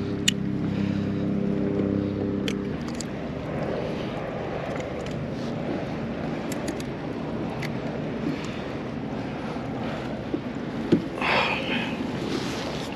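Fishing gear being handled aboard a kayak: small clicks and rattles over wind and water noise, with a louder rustle near the end. A low steady hum stops after about two and a half seconds.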